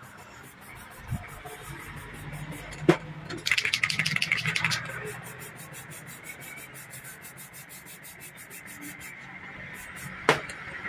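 Aerosol spray-paint can hissing as it coats a fabricated fuel filler neck in white paint. About three and a half seconds in there is a second of quick rattling, and there are two sharp knocks, one near three seconds and one near the end.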